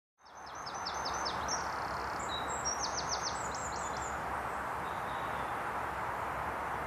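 A small songbird singing quick phrases of short, high, down-slurred notes in the first four seconds, over a steady rushing woodland background noise that fades in at the start.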